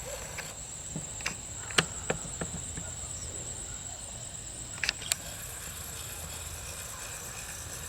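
Steady high-pitched insect trill, crickets, with a scattering of short light knocks and clicks, the sharpest about two seconds in and a pair about five seconds in.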